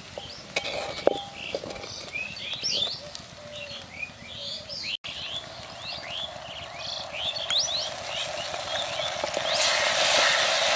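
Small birds chirping over and over while onions and chillies sizzle in hot oil in a clay pot, with two sharp knocks of a wooden spatula against the pot about half a second and a second in. The sizzling swells and becomes the loudest sound in the last few seconds.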